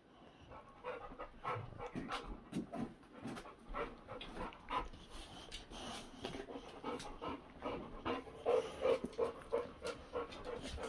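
A boxer dog panting quickly and steadily, louder a little past the middle; this is the stress panting of a dog frightened by fireworks.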